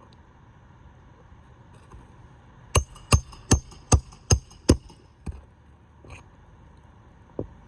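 A hammer driving a 1¼ inch roofing nail into an asphalt shingle: six quick, ringing metal-on-metal strikes at a steady pace, about two and a half a second, then two lighter taps.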